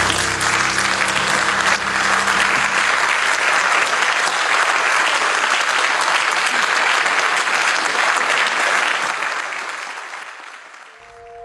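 Audience applauding in a meeting hall, a dense steady clapping that fades out near the end.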